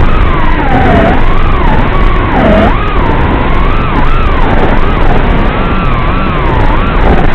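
Brushless motors of an FPV racing quadcopter (T-Motor F40 Pro II, 2600 kV) whining loudly, their pitch swooping up and down about once a second as the throttle changes, over a steady rumble of noise.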